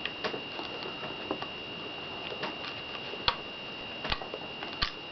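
Light plastic clicks and taps from LEGO pieces being handled, scattered and irregular, with three sharper knocks in the second half. A steady high-pitched whine runs underneath.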